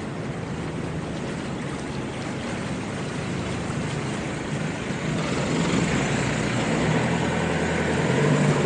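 A boat's engine running steadily on the water, growing louder through the second half as it comes nearer.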